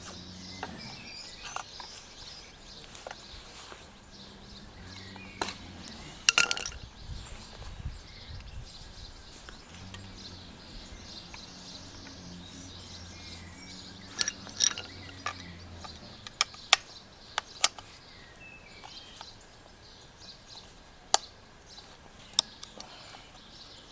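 Scattered clicks and knocks of tools and hands working on a plastic Flymo strimmer while trying to get the strimmer head off. Birds chirp in the background, and a faint low hum runs through the middle stretch.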